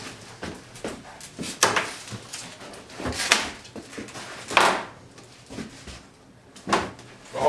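Knocks, bumps and scraping as a bathtub is lifted and manoeuvred by hand, with two longer scraping swells about three and four and a half seconds in.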